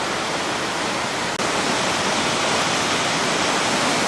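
Steady rush of a waterfall pouring into its plunge pool, slightly louder after about a second and a half.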